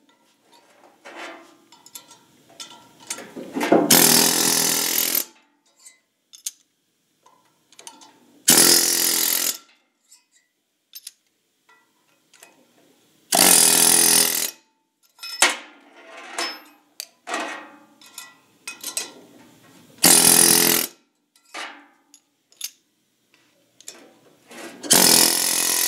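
Chicago Pneumatic air hammer driving a broach through the valve guides of a big-block Chevy cylinder head, in five bursts of about a second each, with short clicks and knocks between as the broach is caught and set into the next guide. Broaching expands the newly installed guides and locks them in place.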